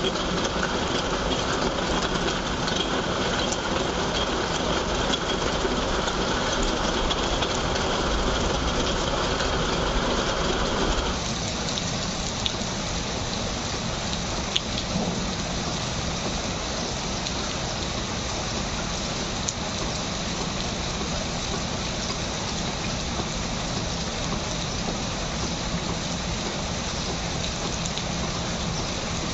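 Steady monsoon rain falling on a flat concrete rooftop and splashing into puddles. About eleven seconds in, it switches abruptly to a softer, thinner rain hiss.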